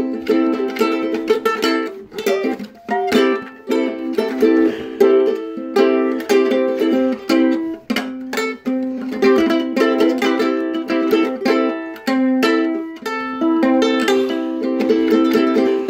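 Ukulele being played, a quick run of plucked and strummed notes and chords with short breaks between phrases.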